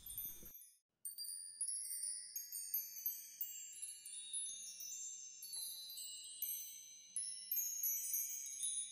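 High, tinkling chimes: many small ringing tones struck one after another and overlapping, starting about a second in after a moment of silence. A faint low hum joins them about halfway through.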